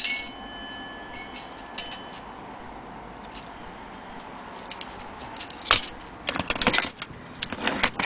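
Metal longcase clock movement being handled: scattered clicks and light metallic clinks, one ringing briefly about two seconds in, then a quick cluster of clicks near the end.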